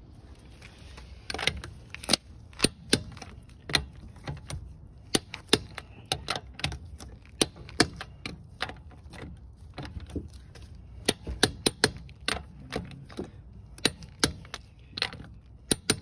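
Metal hand tools clicking and clacking while lug nuts are tightened with a ratchet and torque wrench: a run of sharp, irregular clicks, at times several a second.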